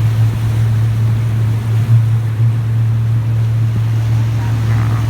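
Boat motor running steadily, a constant low hum, with wind noise on the microphone.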